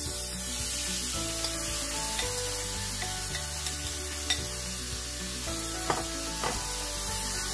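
Marinated chicken strips hitting a hot oiled pan and sizzling, the sizzle starting suddenly as the meat goes in and holding steady. A few sharp clicks come from the utensil as the chicken is scraped out of the bowl.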